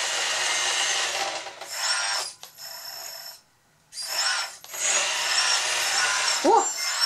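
Electric drive motor and gearbox of a Kabolite K966 RC hydraulic wheel loader running hard in second gear: a loud, high-pitched whirring whine. It drops away about two and a half seconds in, with only a faint high tone, goes quiet briefly, then starts up again about a second and a half later.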